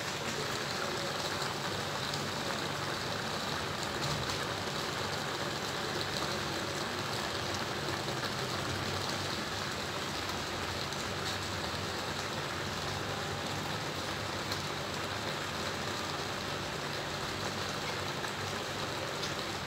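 Fish and vegetable tagine simmering in a pan: a steady bubbling and sizzling.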